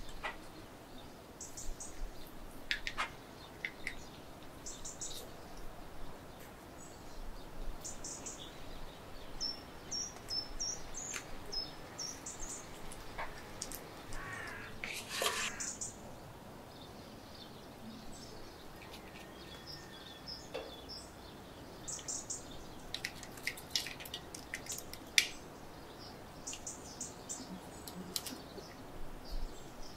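Coarse salt crunching and scraping under hands working it over a whole fish on a wooden board, with a louder crinkling rustle of banana leaf about halfway through as the fish is wrapped. Short high bird chirps come and go in the background.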